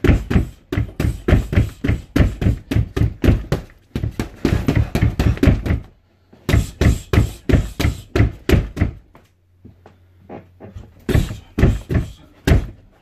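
Gloved punches landing on an RDX heavy bag in rapid flurries of about four thuds a second, broken by short pauses, the longest about two seconds long late on.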